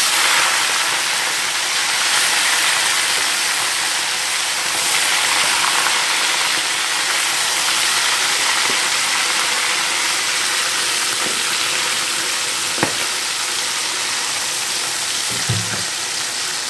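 Small tilapia deep-frying in hot oil in an aluminium wok: a steady sizzling hiss, with one sharp click about three quarters through and a short low knock near the end.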